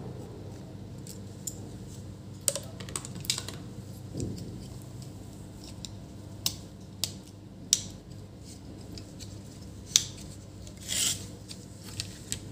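Scattered sharp clicks, taps and light scrapes of a screwdriver and fingers handling a TV power-supply circuit board, with a short scraping rustle near the end as the board is turned over. A steady low hum runs underneath.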